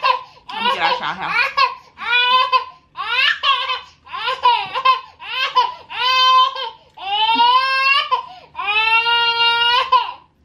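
A toddler's high-pitched, wavering vocalizing: a string of drawn-out cries about one a second, the last two held longer.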